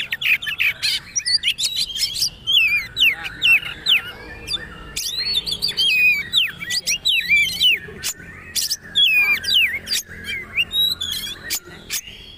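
Oriental magpie-robin (kacer) singing a fast, unbroken, varied song of short whistled notes sliding up and down, mixed with sharp clicks.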